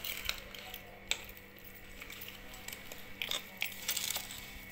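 A spoon stirring and pressing chopped raw mango pieces coated in chili powder and oil in a steel bowl: soft squelching with a few light clinks of the spoon against the bowl.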